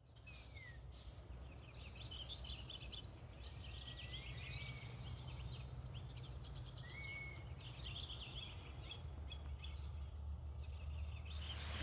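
Small songbirds chirping and trilling, with a few short slurred whistles, over a steady low rumble. It fades in at the start, and about a second before the end the birds give way to a steady hiss.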